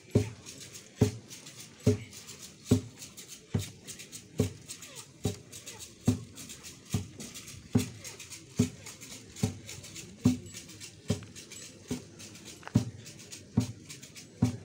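A drum struck in a slow, steady beat, a little more than once a second, with rattles shaking between the strokes.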